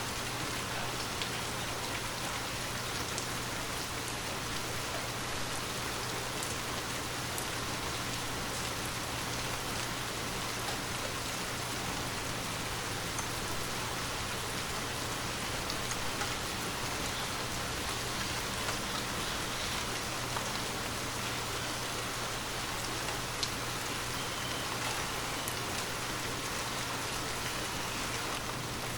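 Steady rain falling, a continuous hiss with many small drops ticking on a surface. A faint steady low hum runs underneath.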